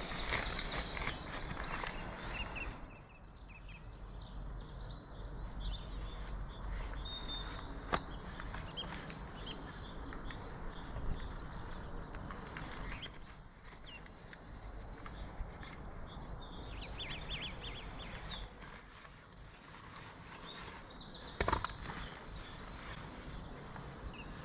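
Birds chirping, with short high trills every few seconds, over steady outdoor background noise and a few sharp clicks.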